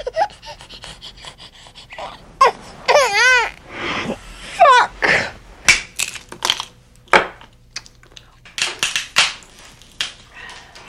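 Bursts of giggling laughter with a rippling, wavering pitch in the first half. Then a run of short, sharp cracks as walnuts are broken open in a metal hand nutcracker and the shells picked apart.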